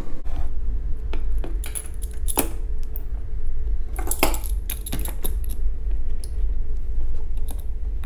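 Steel bar clamps being handled and set on a wooden box: scattered metallic clicks and clacks of the sliding jaws and bars, with the sharpest knocks about two and a half and four seconds in, over a steady low hum.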